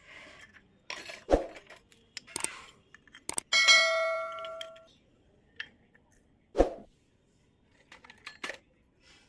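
Pieces of a miniature toy kitchen set being handled, with a few sharp knocks and taps. About three and a half seconds in comes one clear ringing ding that fades over about a second.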